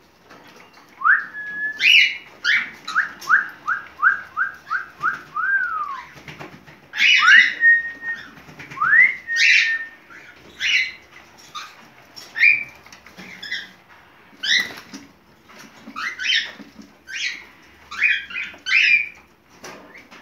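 Cockatiel whistling its courtship song, the sound of a bird in breeding condition: rising and held whistles, a quick run of about eight short repeated notes, then a series of sharper short chirps.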